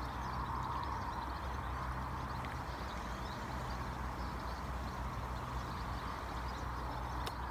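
Waverunner Mk3 bait boat's battery-powered electric motors running at a distance: a steady low hum with a faint hiss.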